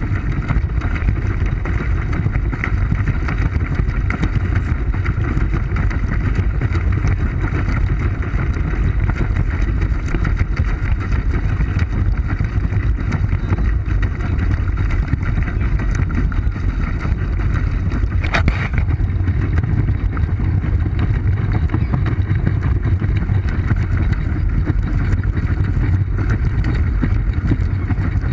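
Steady low rumbling and churning of a pedal boat moving through water, carried through the hull to a GoPro mounted on its bow. A faint click about eighteen seconds in.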